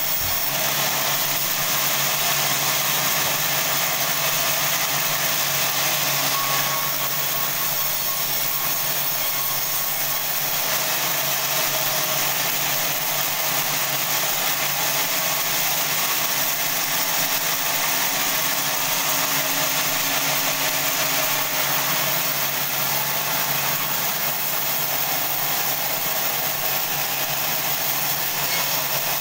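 Sawmill band saw running and cutting through a large log, a steady whirring and hissing mechanical noise with no breaks.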